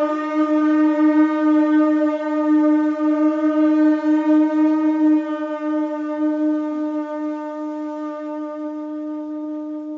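A single long held musical note at one steady pitch, rich in overtones, slowly fading over its second half.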